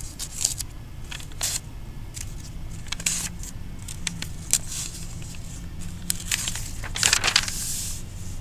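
Low steady hum with scattered light clicks, and a brief rustle about seven seconds in.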